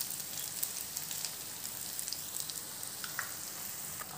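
Onion-tomato masala sizzling steadily in a frying pan, with faint scattered crackles and two slightly sharper ticks about three seconds in.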